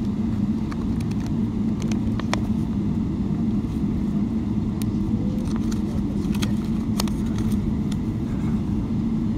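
Cabin noise inside a Boeing 777-200 taxiing on the ground after landing: a steady low drone from the engines at taxi power, with a few light clicks and rattles scattered through it.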